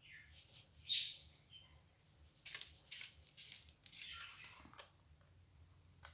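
Cardstock pieces being handled and glued together: faint paper rustles and scrapes, one sharper at about a second in and a busier run from about two and a half to five seconds in.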